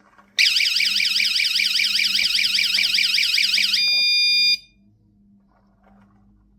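Lancoon wireless door/window alarm sounding its siren: a loud, fast warbling electronic wail that starts about half a second in. Near the four-second mark it switches to a steady tone for under a second, then cuts off suddenly.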